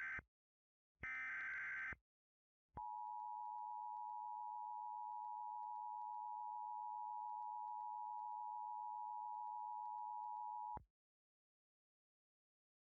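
Emergency Alert System alert opening: the tail of one SAME header data burst and one full burst, each about a second long, then the EAS two-tone attention signal (853 and 960 Hz sounded together) held steady for about eight seconds before cutting off.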